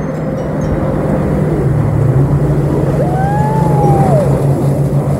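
Jet ski engines running at speed, a steady low drone that drops slightly in pitch a little under two seconds in. A smooth whine rises and falls for about a second as another jet ski passes close, about three seconds in.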